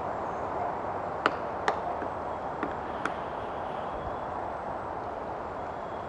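Female pileated woodpecker pecking at a dead black walnut tree: five sharp, irregularly spaced knocks of her bill on the wood over about two seconds, the first two the loudest, over a steady background hum.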